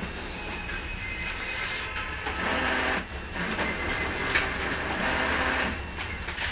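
Canon Advance 4245 office copier running a copy job: a steady motor hum with the whir of paper being fed and carried through toward the finisher, swelling twice, with a sharp click about three seconds in.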